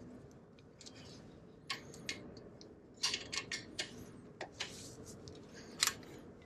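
Light, irregular metallic clicks of a hand ratchet and spanner working on brake caliper mounting bolts as the caliper is tightened up, a quick run of several clicks near the middle and a sharper one near the end.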